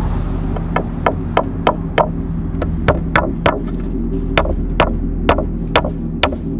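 A nail being hammered into a wooden plank: a run of sharp strikes, about three a second, in short runs with brief pauses between them.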